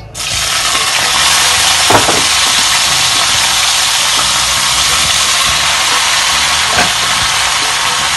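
Broccoli florets sizzling in hot oil in a wok, the loud hiss starting suddenly as they go in and holding steady, with a couple of brief knocks about two seconds in and near the end.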